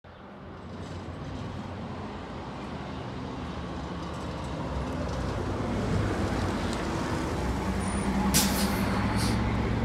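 Orion V diesel transit bus approaching and passing close by, its engine steadily growing louder. Two short hisses near the end as it goes past.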